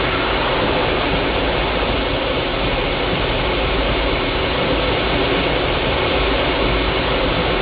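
Cruise missile's jet engine in flight, a steady roar with a thin high whine running through it, cutting off suddenly at the end.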